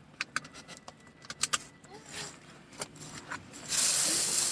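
A scatter of small clicks and light rattles inside a car, like keys or fittings being handled. Near the end a loud steady hiss starts abruptly.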